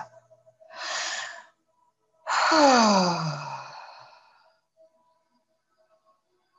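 A woman's audible breath: a short breath in about a second in, then a long voiced sigh out that starts loud, falls in pitch and fades away.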